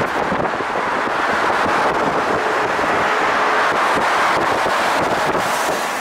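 Steady rush of road and wind noise from a car travelling at speed on an expressway.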